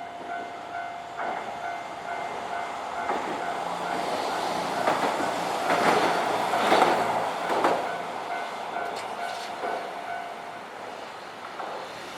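Japanese level-crossing alarm ringing a steady repeated tone as a Hankai Tramway tram passes over the crossing, its wheels clattering over the rail joints loudest in the middle. The alarm stops about ten seconds in, once the tram has cleared the crossing.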